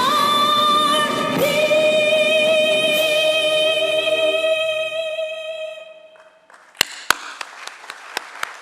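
A national anthem being sung, ending on one long held final note that fades out about six and a half seconds in. A few sharp clicks follow in the quieter stretch.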